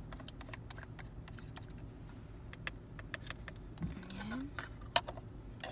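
Light clicks and taps of plastic takeaway-cup lids and a wooden stirrer being handled, with a sharper click about five seconds in, over the steady low hum of a car cabin.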